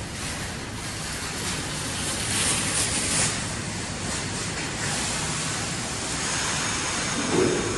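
R68 subway train standing at the platform with its equipment running: a steady hum and rushing hiss, with a brief louder hiss about two and a half seconds in and a short louder sound near the end.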